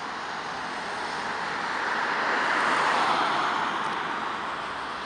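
A car driving past on the road; its tyre and engine noise swells to a peak about halfway through and then fades away.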